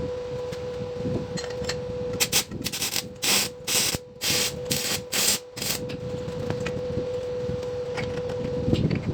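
About six rasping strokes of a hand-worked abrasive across a metal part, in quick succession over a steady hum.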